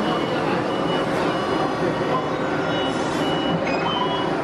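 Short, high electronic beeps repeating at uneven intervals over a steady, loud background din, at a ride-vehicle loading platform.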